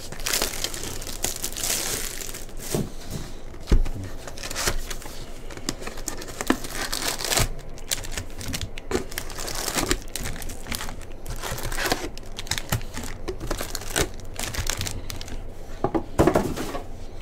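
Packaging being torn and crinkled as a 2022 Bowman Baseball jumbo box of trading cards is opened, and its foil-wrapped packs are handled. It is a continuous rustle and crackle, broken by many quick sharp crinkles.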